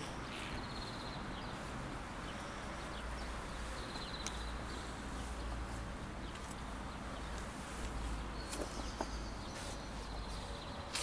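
Outdoor ambience: a steady low rumble and hiss, with short high bird chirps now and then and a few faint clicks.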